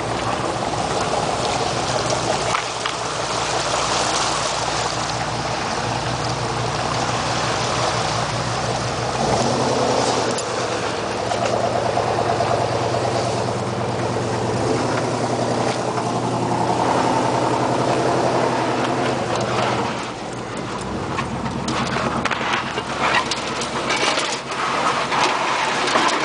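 A 4x4 truck driving on a gravel forest road, heard from inside the cab. The engine runs steadily over tyre and road noise, and its pitch shifts a few times as the revs change. Clicks and rattles come in near the end.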